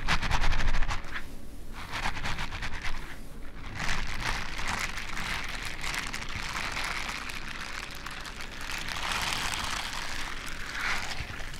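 Leather gloves rubbed against each other close to the microphone: a rustling swish that swells and fades several times, with a quick crinkly flutter in the first second.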